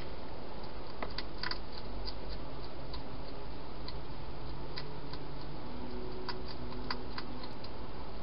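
Scattered sharp clicks and crunches of a wild hedgehog chewing food at a bowl inside a plastic feeding box, with a cluster about a second and a half in. They sit over the steady hiss of the camera's microphone.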